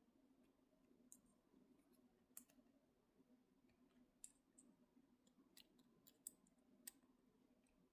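Faint, scattered small metal clicks, about half a dozen, from a bobby pin being worked in the keyhole of Peerless 700C handcuffs, heard over quiet room tone.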